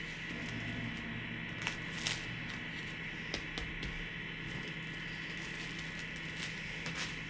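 Steady low hum with a few light, sharp clicks and taps scattered through the first half, typical of small kitchen handling sounds during baking.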